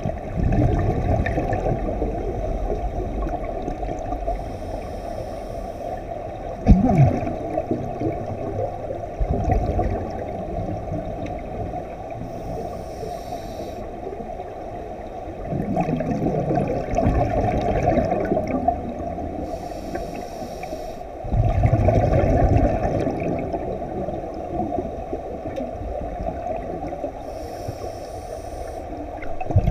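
Scuba diver breathing through a regulator underwater: exhaled bubbles gurgle out in louder surges every six to eight seconds, with brief faint hisses of inhalation between them, over a muffled steady underwater wash.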